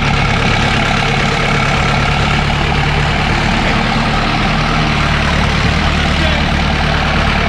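Off-road jeep's engine running loud and steady at an even pitch, with a rough hiss of noise over it.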